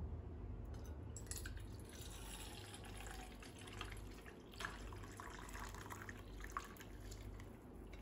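Hot kadha, a spiced herbal decoction, poured from a steel pan through a steel tea strainer into a steel bowl: a faint, steady trickle and splash of liquid starting about a second in, with a few sharper drips.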